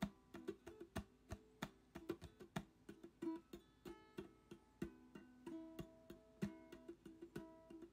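Background music: a plucked acoustic guitar playing quick, rhythmic notes.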